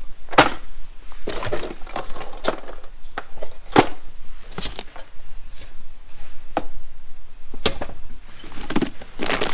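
Things being shifted about by hand in and around a plastic storage tote: several sharp knocks and clatters, with rustling of paper and cardboard in between.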